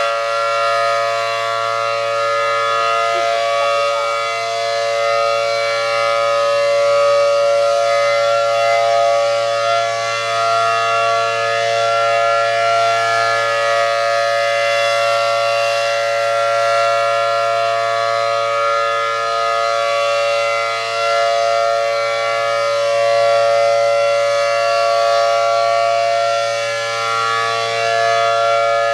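ACA Allertor 125 rotating outdoor warning siren sounding a steady Full Alert tone, a two-tone chord from its 10- and 12-port rotor, swelling and fading gently in loudness as the horn rotates.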